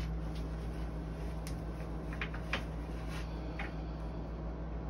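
A few faint, scattered clicks and light handling sounds as a metal mattress-retainer bracket is fitted to an adjustable bed base, over a steady low hum.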